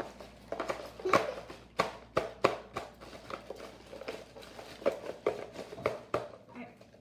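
Plastic-bagged Happy Meal toys being handled and felt through their bags: a run of irregular clicks, taps and crinkles.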